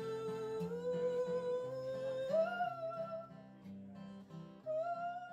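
Acoustic guitar music: plucked low notes in a steady rhythm under a long held melody note that steps up about two seconds in, fades, and returns near the end as the piece dies away.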